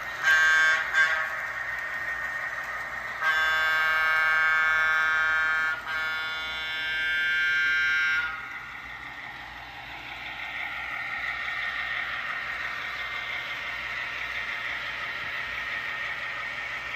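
Diesel locomotive horn for an N scale model train: two short blasts, then two long ones. After the horn, a steady hum of the running model trains continues.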